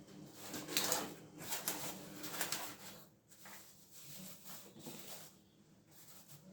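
Thin paper rustling and crinkling as it is pulled and tucked over dough, in a few short crinkles in the first two and a half seconds, then quieter handling.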